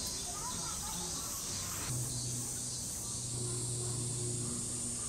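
Steady high-pitched buzzing of a summer cicada chorus, with a low hum underneath.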